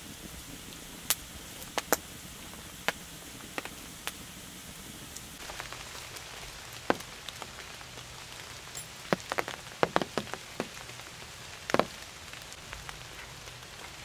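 Rain falling: a steady hiss with scattered drops tapping sharply at irregular intervals, most thickly about nine to twelve seconds in.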